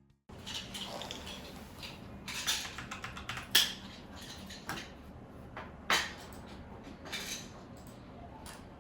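Irregular sharp clicks and light knocks from hands working computer desk equipment, over a steady low hum. The loudest knocks come about three and a half and six seconds in.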